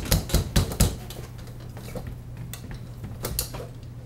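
Metal frame parts of a military folding cot clicking and knocking as the end bar is worked into place: a quick run of four or five sharp knocks in the first second, then scattered lighter clicks.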